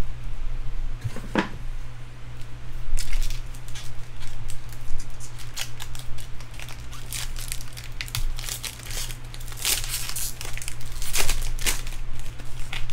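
Foil wrapper of a baseball card pack being torn open and crinkled by hand, in repeated short bursts of crackling and rustling over a steady low hum.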